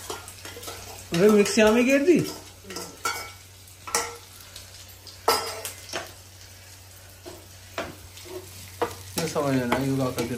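A metal slotted spoon stirring malai chaap, vegetables and cream in a sizzling non-stick frying pan, with clinks of the spoon against the pan every second or so. A short voice comes in about a second in and again near the end.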